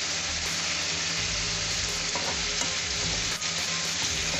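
Sliced onions sizzling steadily in hot oil in a frying pan as they are stirred with a metal slotted spoon, at the stage of frying them until brown and crisp. A low steady hum sits underneath.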